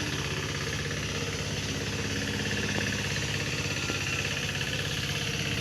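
An engine running steadily at idle, a constant hum with a fast, even pulse.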